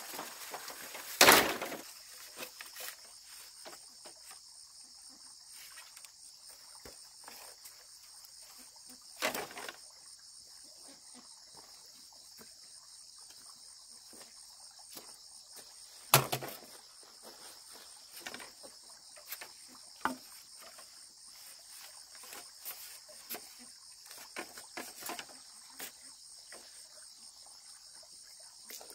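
A steady high-pitched chorus of insects chirring, broken by a few sharp knocks, the loudest about a second in and others around a third and halfway through, with scattered faint clicks and rustles.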